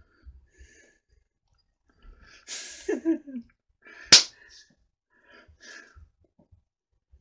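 Hands moving and slapping softly while signing, with one sharp hand slap about four seconds in, the loudest sound. Just before it comes a short breathy vocal burst that falls in pitch, as he laughs.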